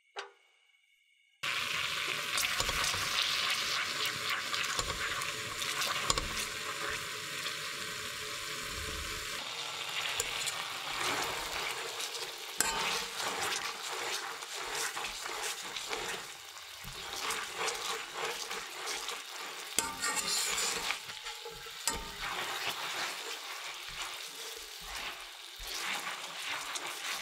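Soy-based sauce bubbling and sizzling in a stainless-steel frying pan, starting suddenly about a second and a half in, as pork shoulder steaks are turned and coated in it with chopsticks, with frequent small clicks. The sauce is being reduced over medium heat while the meat finishes cooking.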